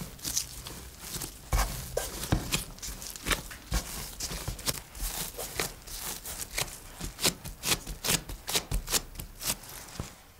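Gloved hands kneading and rolling a soft, sticky bread dough on a wooden tabletop: an irregular run of soft pats, presses and tacky crackles from the dough, with the rubbery rustle of the disposable gloves. The handling stops just at the end.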